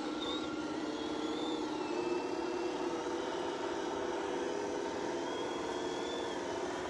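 Small electric motor and gearbox of a scale RC crawler whining as it drives slowly. The pitch drifts gently up and down with the throttle.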